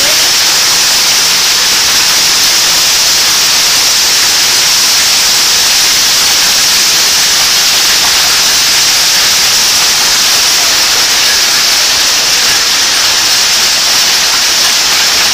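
Heavy hail and rain falling on pavement in a thunderstorm: a loud, steady, unbroken hiss.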